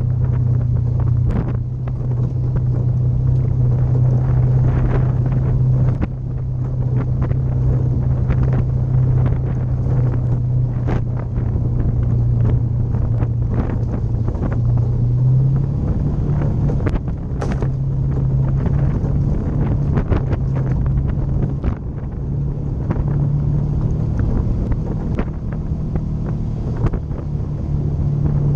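Polaris RZR 900 side-by-side's twin-cylinder engine running at a fairly steady pace on a dirt trail, its pitch shifting a little now and then. It is mixed with frequent knocks and rattles from the rough ground and wind on the microphone.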